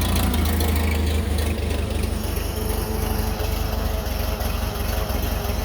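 Case 1845 Special skid steer engine running steadily near idle. Its exhaust is loud because the muffler has disintegrated. The engine note changes slightly about a second and a half in.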